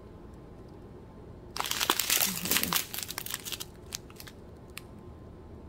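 Small plastic bag of square resin diamond-painting drills crinkling as it is handled and turned over in the hands, a dense crackle lasting about two seconds from about a second and a half in, then a few faint clicks.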